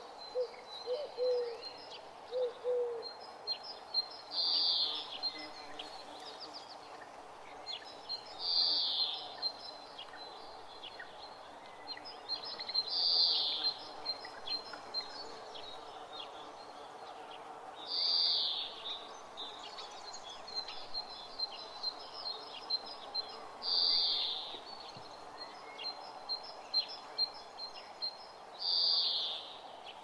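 Morning birdsong: one bird sings a short, loud, high song phrase about every five seconds, six times in all, over steady high chirping and trilling from other small birds. A few low cooing notes from a pigeon or dove come in the first seconds.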